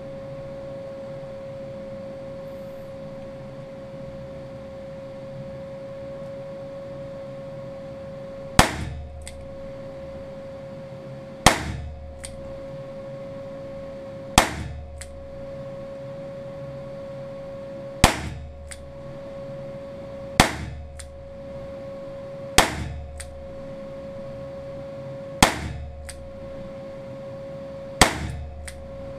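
Eight single revolver shots, two to four seconds apart: a Weihrauch HW5 T firing .17 HMR cartridges through its .22 WMR chambers. Each sharp report has a short ringing tail and a fainter second click just after. A steady hum runs underneath.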